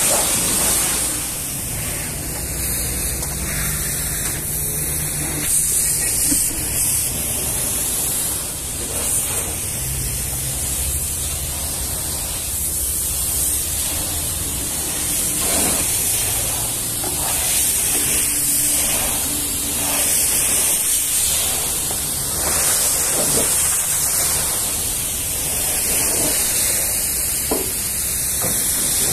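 Steady hiss of a pressure washer's high-pressure water spray, with a low hum from the running machine beneath it.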